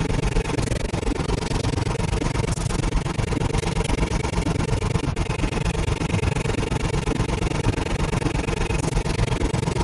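Experimental noise soundscape: a dense, steady mechanical-sounding drone with a rapid flutter in the low end and a faint held hum through it.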